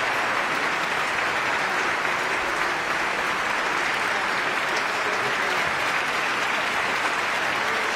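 Concert audience applauding: a dense, steady wash of clapping.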